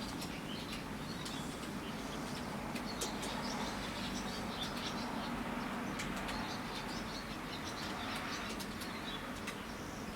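Outdoor ambience: small birds chirping in many short high notes over a steady low hum, with no blasts or gunfire.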